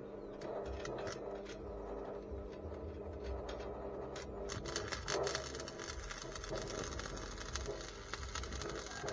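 Stick (arc) welding with a welding rod on a steel go-kart frame: a few scattered crackles at first, then from about four seconds in the steady, dense crackle and sizzle of the burning arc.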